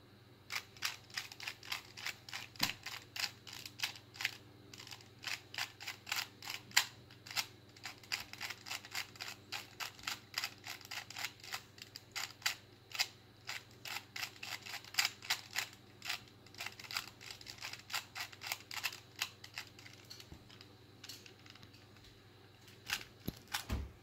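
Plastic clicking of a 2x2 Rubik's Cube's layers being turned fast by hand, in quick irregular runs of clicks. The clicking thins out about 20 seconds in, and near the end come a few more clicks and a dull thump.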